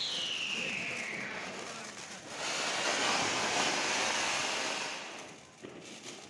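Flower-pot fountain firework (anar) hissing as it sprays sparks, louder from about two seconds in and dying away near the end. A brief falling whistle at the start.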